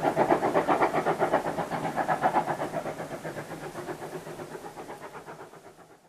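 A steam train going away along the line, its fast, even rhythmic beat steadily fading until it dies out near the end.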